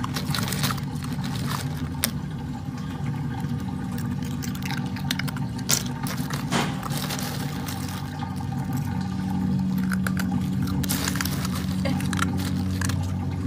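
Crushed ice clinking and crunching as an otter pup moves and paws on it, with scattered small clicks over a steady low hum.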